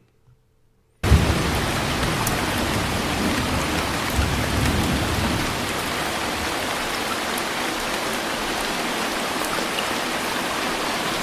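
Heavy rain pouring steadily, from a rain-and-thunder sleep recording, cutting in suddenly about a second in, with low rumbles of thunder near the start and again a few seconds later.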